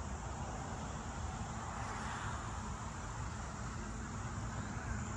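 Steady outdoor ambient noise with a low, fluctuating rumble and no distinct events.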